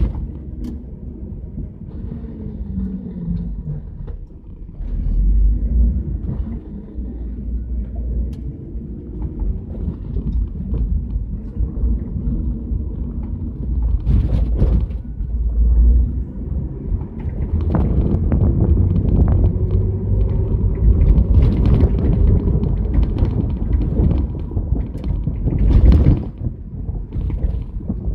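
1977 Chevrolet Camaro driving, heard from inside the cabin at the back seat: a low engine and road rumble whose pitch slides up and down with the car's speed and grows louder about five seconds in. A few sharp knocks or rattles cut through it, the loudest near the end.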